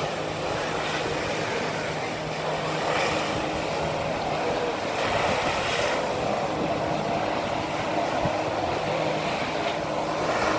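Water-jet flyboard in use: a steady engine drone from the watercraft pumping water up the hose, mixed with the rushing spray of the jets under the rider's boots.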